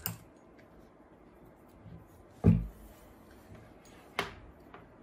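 Handling knocks from an electric demolition hammer being picked up and moved on a wooden table: one heavy thump about halfway through, then a sharp knock near the end.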